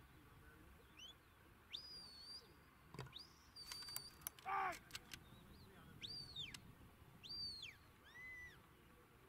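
A handler's shepherd's whistle giving commands to a working sheepdog: a series of short, high whistled notes that rise, hold and fall, with a lower, level note near the end. One short voiced call comes about halfway through, and a few clicks sound just before it.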